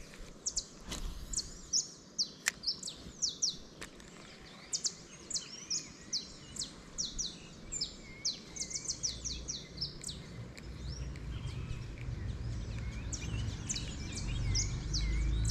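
Birds chirping busily, many short quick calls sliding downward in pitch, thinning out in the last few seconds. A couple of sharp clicks come in the first three seconds, and a low rumble grows louder over the second half.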